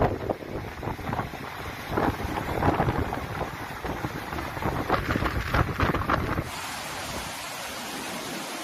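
Gusty wind buffeting the microphone over a flooded river in spate, in irregular surges. About two-thirds of the way in it switches abruptly to a steady rush of fast floodwater pouring through a walled channel.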